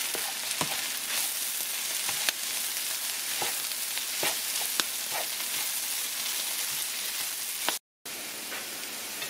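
Diced potatoes, broccoli leaves, ham and scrambled egg sizzling steadily in a nonstick frying pan, with scattered light scrapes and taps of a slotted spatula stirring them. The sound drops out for a split second near the end.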